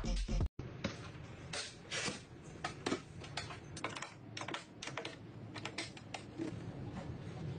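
Irregular light clicks and scuffs, a few a second, of a microfibre gap duster on a long handle being pushed and tapped along a tiled floor under furniture. Background music plays for the first half second and cuts off.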